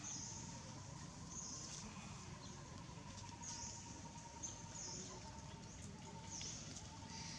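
Faint outdoor ambience: short high chirps repeating every second or two, over a faint steady thin tone.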